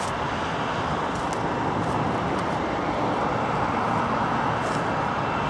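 Steady rushing noise of jet engines at an airport, with a faint steady high tone running through it.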